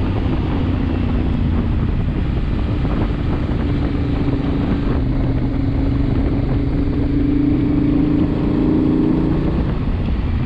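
Motorcycle engine running under way at a steady cruise, with wind rushing over the microphone. The engine note holds and edges a little higher through the middle, then eases off about a second before the end.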